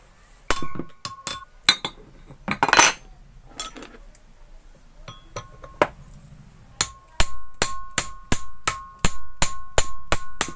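Hammer blows on a metal rod driving the lock into place on a domestic water pump, each strike ringing briefly. A few scattered blows and a scrape come first, then from about seven seconds in a steady run of about a dozen blows, roughly two and a half a second.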